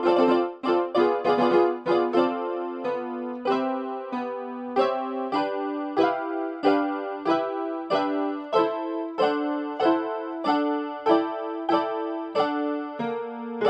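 Background music played on a Casio electronic keyboard in a piano voice: chords and melody notes, quick at first, then struck at a steady pace of about one every half second.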